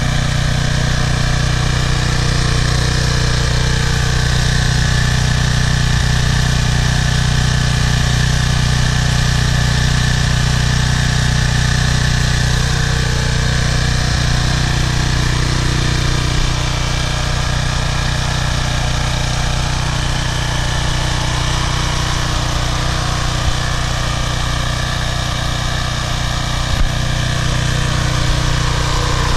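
Briggs & Stratton 190cc single-cylinder engine on a pressure washer running at a steady speed. It runs evenly, without surging or dying, now that its clogged carburetor jet has been cleaned out.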